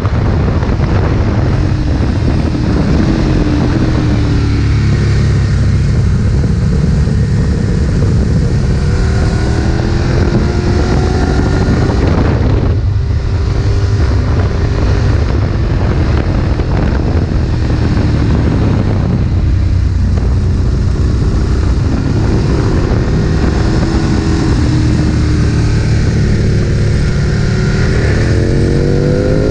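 Ducati 1098's L-twin engine running hard on a race track, its pitch rising and falling with the throttle and gearchanges. The sound eases briefly about twelve and twenty seconds in, and the revs climb steeply near the end.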